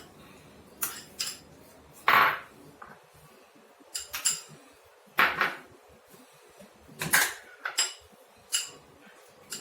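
A spoon clinking and scraping against a bowl as chopped vegetables are stirred together: irregular sharp knocks, roughly one a second, some with a short ring.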